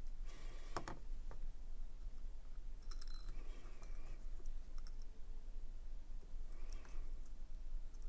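Small metal parts of a disassembled pocket knife being handled, with light clicks and brief scraping in three short spells: about half a second in, around three to four seconds, and near seven seconds.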